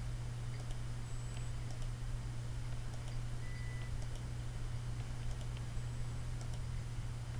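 Short pure test tones from an automated hearing test program: a very high beep about a second in, a mid-pitched beep near the middle and another very high beep later, over a steady low hum with faint scattered clicks.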